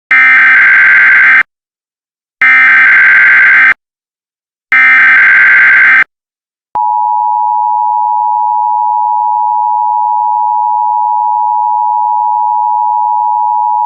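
Emergency Alert System tones. Three loud bursts of SAME digital header data, each about a second and a half long, come one after another. About half a second after the third, the steady two-tone EAS attention signal starts and holds.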